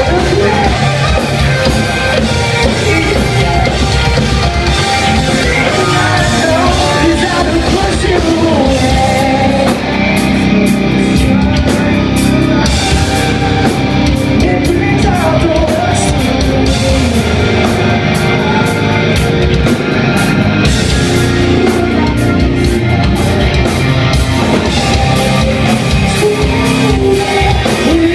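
Rock band playing live, loud and heavy, with distorted guitars, drum kit and a singer.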